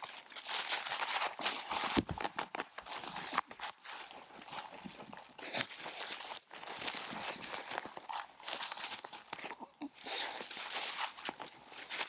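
Dry fallen leaves and rotten wood rustling and crunching in an irregular run as a Staffordshire bull terrier roots about nose-down in the leaf litter at a log.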